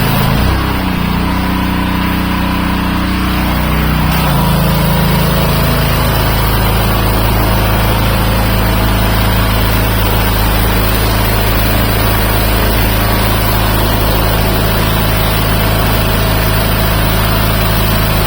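Engine-driven pressure washer running loudly, a steady engine note under the hiss of the water jet spraying stucco. The engine note shifts about half a second in and again around four seconds in, then holds steady.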